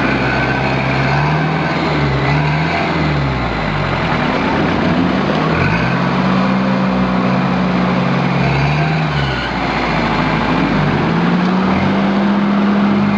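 Off-road 4x4 engine revving hard under load during a tow-strap recovery from deep mud, rising and holding for a few seconds then dropping back, three times over.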